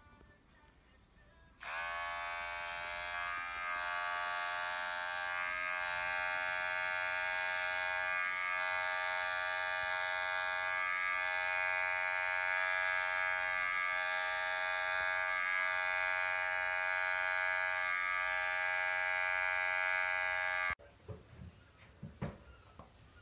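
Electric pet hair clipper running with a steady buzz as it trims the fur on a cat's paw. It starts suddenly about a second and a half in and cuts off suddenly near the end.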